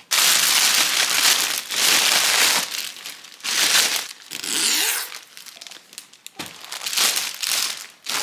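Clear cellophane gift wrap crinkling loudly in several bursts as it is gathered and cut with scissors.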